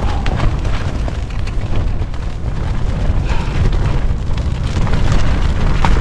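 Strong, gusting wind in a sandstorm: a heavy, continuous low rumble buffeting the microphone, with scattered small ticks and flaps.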